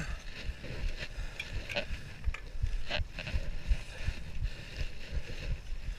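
Mountain bike rolling over a dirt trail: a low tyre rumble with scattered knocks and rattles from the frame and drivetrain as it goes over bumps.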